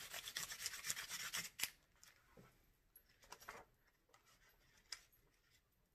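Coloured pencil rubbed fast back and forth across paper laid over a textured plastic piece, making a frottage rubbing. The strokes stop with a sharp tap about a second and a half in, followed by faint scattered paper rustles as the sheet is lifted.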